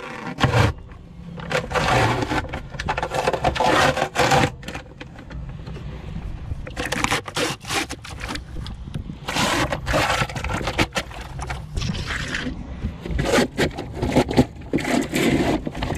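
Peel ply being ripped off cured fiberglass and epoxy on a boat's cockpit floor: a tearing, scraping sound in several pulls of a second or more each, with short pauses between.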